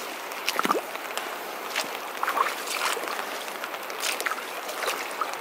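Leather hiking boots splashing step by step through shallow water over flat rock, several sloshing steps about a second apart, over the steady rush of flowing river water.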